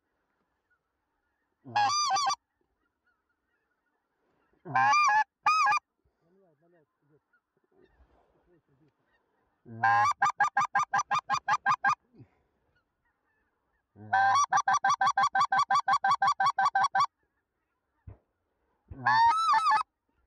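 Hand-held goose call blown to lure flying geese: a single honk, then two, then a quick run of short clucking notes about five a second, a longer faster run, and a final double honk near the end.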